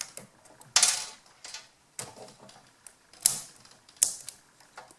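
Plastic housing and parts of a wireless earbud headset being handled and pried at by hand: about six sharp clicks and short scrapes, irregularly spaced.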